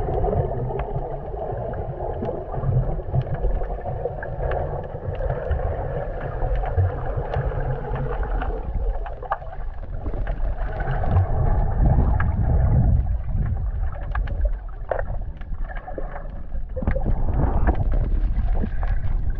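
Underwater sound of the open sea: a low, muffled rumble of moving water with a hazy hiss and many small scattered clicks and crackles.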